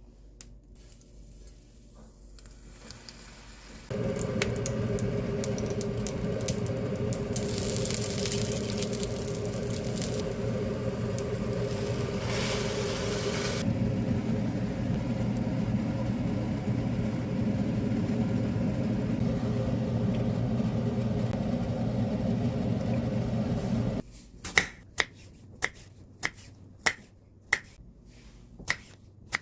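A small electric appliance motor hums steadily for about twenty seconds, with a steady hiss added for several seconds partway through, and stops abruptly. It is followed by a series of sharp knocks, about two a second.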